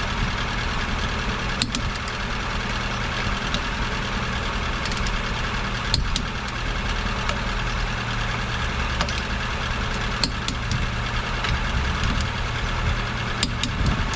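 Ford Fiesta Mk6 engine running steadily, with a few faint clicks.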